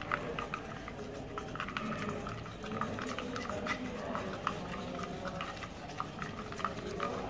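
A slide tapping and scraping in the wells of a plastic four-well mastitis test paddle as milk samples are stirred with surf solution. The result is a run of small, irregular clicks.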